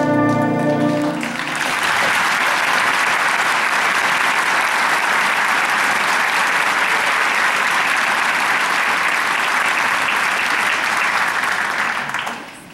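Jazz ensemble's brass and saxophones holding a final chord that cuts off about a second in, followed by an audience applauding steadily, dying away near the end.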